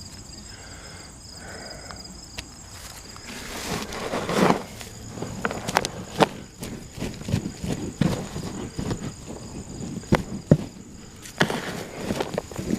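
Hands digging and rummaging through loose compost in a plastic trash-barrel planter: rustling, crunching soil with scattered knocks and scrapes, busiest from a few seconds in and again near the end.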